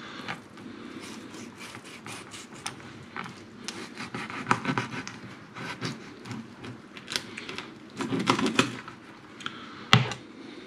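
Kitchen knife trimming the fins off a sea bass fillet on a plastic chopping board: a run of small irregular clicks and scrapes as the blade cuts and meets the board, with a sharper knock near the end as the knife is set down.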